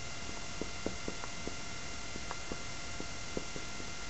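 Marker writing on a whiteboard: a string of light, irregular ticks as the tip strikes and lifts, over a steady electrical hum and hiss.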